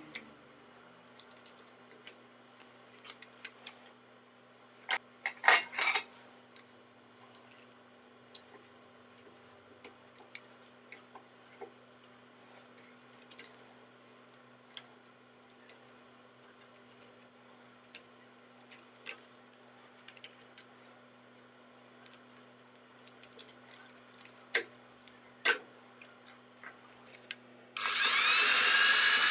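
Workshop handling noises: scattered clinks, taps and scrapes of tools and small metal parts, with one louder scrape about five seconds in. Near the end a small power tool motor runs for about a second and a half, its pitch rising as it spins up.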